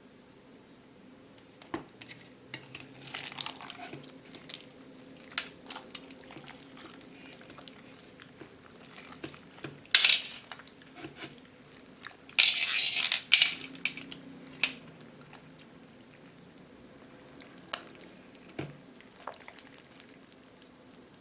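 Slime packed with plastic pearl beads being worked by hand: scattered clicks and crackles of the beads, with louder crunching bursts about ten seconds in and again from about twelve to thirteen and a half seconds.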